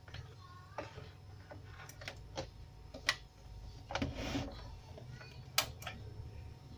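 Scattered light clicks and taps of hands handling the plastic cabinet and front-panel buttons of a CRT television, over a low steady hum, with a brief rustle about four seconds in.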